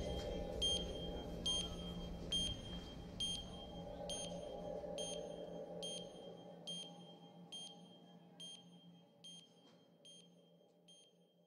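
Electronic soundscape: a short, high electronic beep repeats a little more than once a second over a low, steady drone, and the whole mix fades away.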